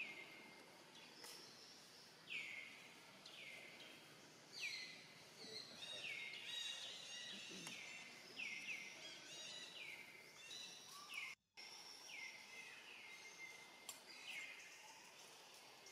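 Faint bird calls repeating through the whole stretch: high notes that each drop quickly in pitch and then hold for a moment, several overlapping at times. About eleven seconds in the sound cuts out completely for a moment.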